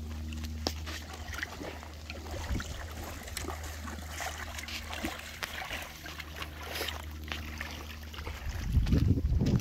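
River water trickling and lapping, with scattered small splashes and clicks over a steady low hum. A louder low rumble comes near the end.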